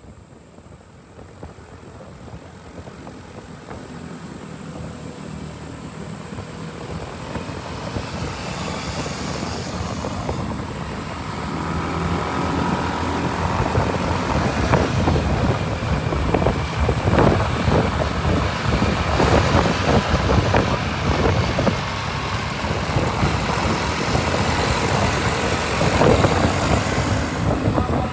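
Road vehicle engine and road noise, growing steadily louder over about the first fourteen seconds and then staying loud and rough.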